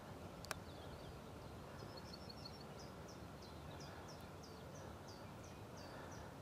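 Faint birdsong: a small bird repeats a short, high, down-slurred note about three times a second from about two seconds in, over a low rumble of outdoor background noise. There is one sharp click about half a second in.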